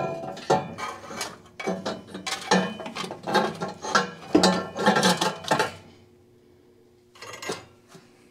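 Stainless steel exhaust header clanking against the engine and its own tubes as it is fitted to the cylinder head of a Mazda B2000: a rapid run of metallic knocks with a ringing tail for about six seconds, then one more knock near the end.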